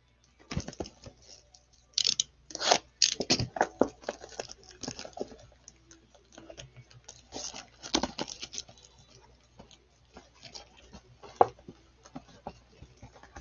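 Plastic wrap and pack wrappers of a Donruss Optic basketball mega box crinkling and tearing as the box is opened by gloved hands. Irregular crackles and rustles, busiest about two to four seconds in and again near the middle, with lighter handling between.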